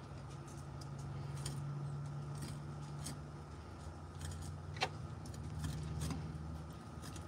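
Faint ticks of a cleaver's blade cutting along a fish's spine and touching the wooden cutting board, with one sharper click about five seconds in, over a steady low hum.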